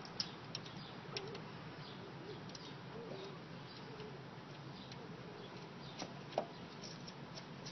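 Faint, irregular small metallic clicks and taps of a nut, washer and tools being handled as a nut is threaded by hand onto a gas-door mounting stud.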